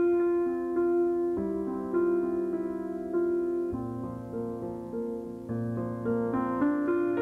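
Slow piano music: sustained notes and chords, with a new note or chord struck every second or so.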